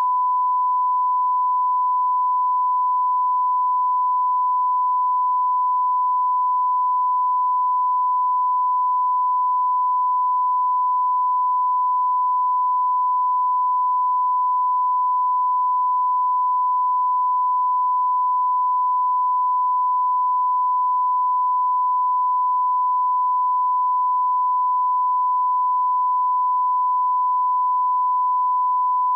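Steady 1 kHz line-up tone, one unbroken pure pitch. It is the reference tone that runs with colour bars at the head of a broadcast master, used to calibrate audio levels.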